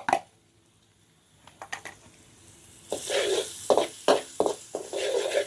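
Finely minced garlic frying in hot oil in a wok, sizzling steadily from about three seconds in after a quiet start with a few light clicks.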